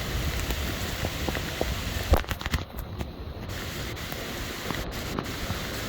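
Rain falling, with drops crackling and tapping directly on a wet waterproof camera's microphone. About two seconds in there is a sharp knock, then the sound goes dull for about a second as water covers the microphone.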